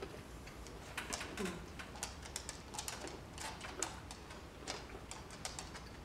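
Faint, irregular crunching clicks of Nerds, tiny hard sugar candies, being chewed.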